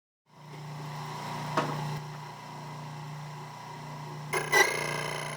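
A steady low hum with a sharp click about a second and a half in and a short rattle of clicks near the end.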